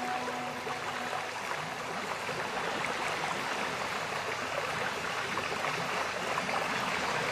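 Steady rushing noise like flowing water, with the background music's held tones dying away in the first second.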